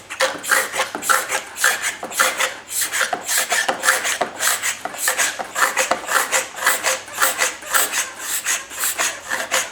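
Liquivac hand-pump oil extractor being pumped about twenty times, the plunger rasping back and forth in an even rhythm of several strokes a second. The pumping draws a vacuum in the tank to suck the old oil out of the mower engine's crankcase.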